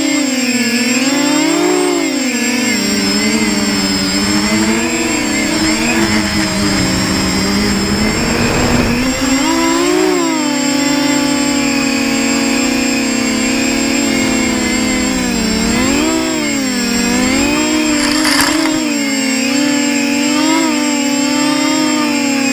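Versacopter 280 quadcopter's electric motors and propellers running in flight, heard close from the onboard camera: a steady whine whose pitch rises and falls every few seconds as the throttle changes. A brief crackle about 18 seconds in.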